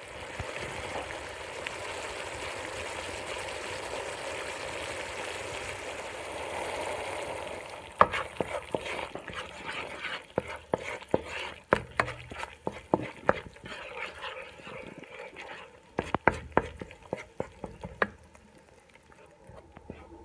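Curry sauce sizzling and bubbling in a pot in a steady hiss. From about eight seconds in, a utensil stirring it knocks and clicks against the pot again and again.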